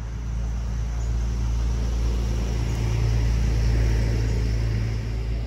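A motor vehicle's engine rumbling with a rushing noise, swelling to its loudest about three to four seconds in and then easing off, as a vehicle passing close by would.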